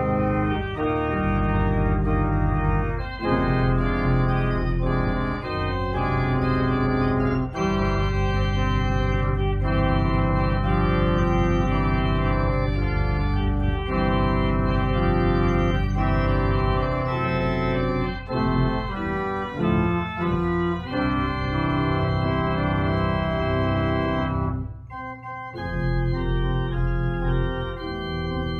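Church organ playing sustained chords over a deep bass line. It drops briefly quieter about 25 seconds in, then comes back full.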